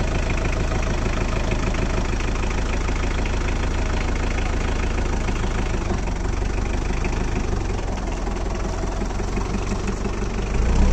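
1994 Ford diesel tractor engine idling steadily with a diesel clatter, growing a little louder near the end.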